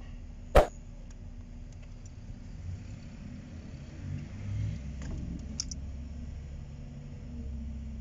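One sharp click about half a second in, with a fainter click later, over a low steady rumble, as loose dashboard wiring and a small probe are handled.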